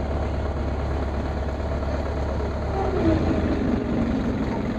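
Fishing boat's engine running with a steady low drone. About three seconds in, its note changes and a falling tone follows.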